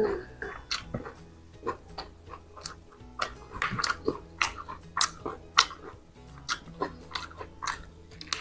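Close-up eating of a fried chicken leg: the fried meat torn apart by hand, then chewed and bitten, heard as many irregular short, sharp clicks and smacks.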